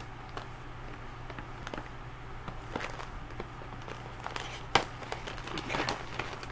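Hands opening a cardboard box and clear plastic food tray: scattered small clicks and rustles of packaging, with one sharper click about three-quarters through.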